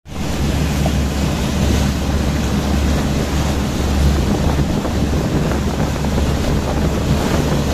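Wind buffeting the microphone and water rushing and splashing past a moving boat, over a steady low rumble.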